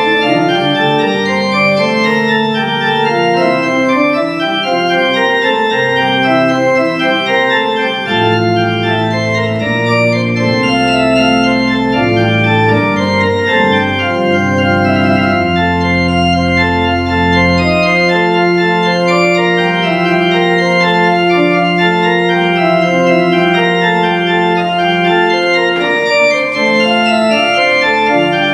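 Three-manual church organ playing a classical piece, with many held notes. Deep bass notes come in about a third of the way through and are held for around ten seconds.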